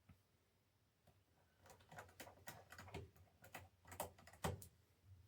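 A run of light clicks and taps from the laptop's case, screws and screwdriver being handled during reassembly. The clicks start about a second and a half in, and the loudest knock comes near the end.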